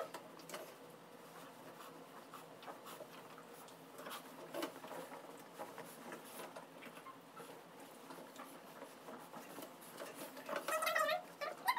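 Faint rustling and scuffing of a towel being rubbed over a bulldog. Near the end comes a dog's high, wavering whine.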